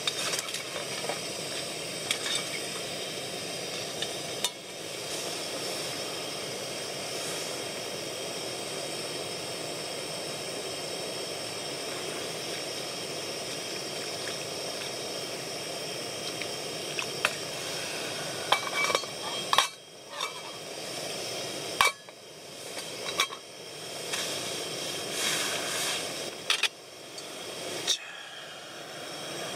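Gas camping stove burner hissing steadily under a pot of simmering hotpot broth. In the second half, utensils and the pot lid clink sharply against the metal pot several times.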